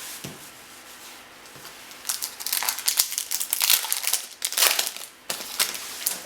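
A trading card pack wrapper crinkling as it is handled and torn open. It starts about two seconds in, in a string of crackles, and pauses briefly near the end.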